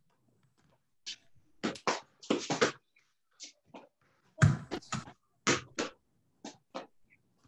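Soccer balls being juggled on the foot: about a dozen irregular thuds of ball on foot, the loudest about halfway through, with short silences between.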